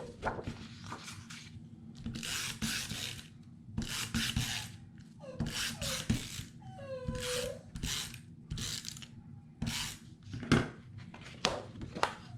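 A dog whimpering in short falling whines, among a run of irregular rubbing and scraping sounds, each about half a second long.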